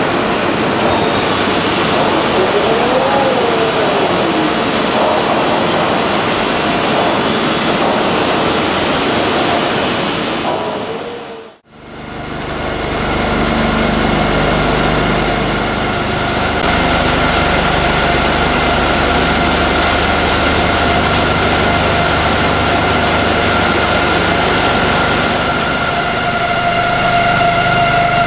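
Loud drill-floor machinery noise on an offshore drilling rig, with a whine that rises and then falls in pitch once. After a brief fade about halfway through, it gives way to the shale shakers in the shaker house running: a steady hum with a steady high whine, as they screen rock cuttings out of the drilling mud.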